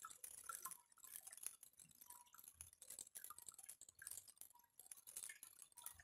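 Faint trickling and dripping of water spilling from the stacked cement bowls of a small tabletop fountain into its basin.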